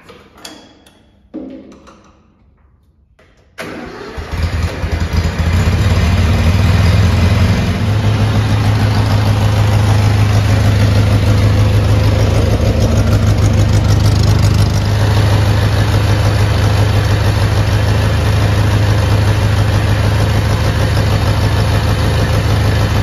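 A couple of knocks as the driver climbs on, then the Satoh Bison S650G tractor's 1-litre four-cylinder gasoline engine starts about three and a half seconds in and runs steadily. It is running on only three of its four cylinders, a dead cylinder that the owner thinks is an ignition-system problem.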